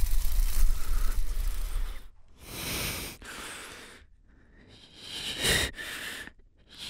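A low rumbling drone that drops away about two seconds in, followed by two long, heavy breaths from a man.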